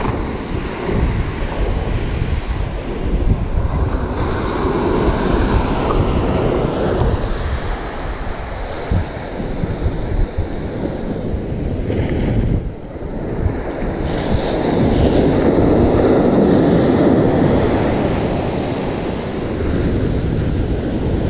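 Ocean surf breaking on a sand beach, with wind buffeting the microphone; the surf noise swells louder about two-thirds of the way through.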